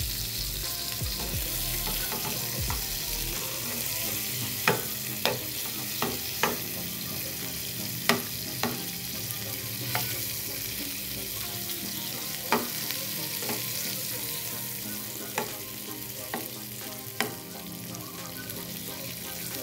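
Shrimp sizzling in butter in a nonstick frying pan with a steady hiss, while a metal spoon turns them, tapping and scraping against the pan about a dozen times.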